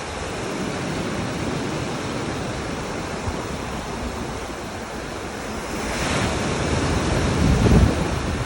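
Ocean surf washing in steadily, with wind rumbling on the microphone. A wave surges about six seconds in, and a heavier low rush near the end is the loudest moment.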